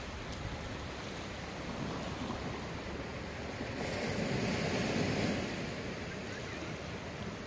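Sea surf washing against a rocky shore as a steady rush, with one wave swelling louder about four seconds in and easing off by about six seconds.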